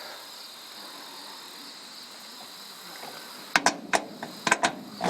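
Steady chirring of crickets, then a quick run of sharp clicks and knocks near the end.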